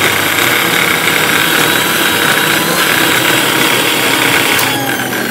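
Electric mixer grinder motor running at full speed, grinding chopped garlic and ginger with water in a glass jar into paste. Near the end the motor is switched off, and its whine falls in pitch as it winds down.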